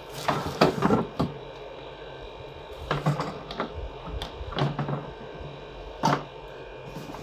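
Unpacking noises: cardboard and plastic packaging rustling, with a handful of irregular knocks as parts are lifted out of the box.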